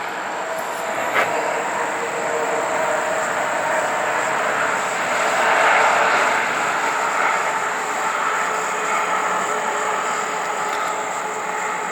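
Train passing on the railway line through the dam breach: a steady rushing noise that swells a little around the middle.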